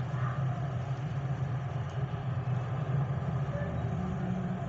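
A steady low mechanical hum, like an engine or motor running at idle.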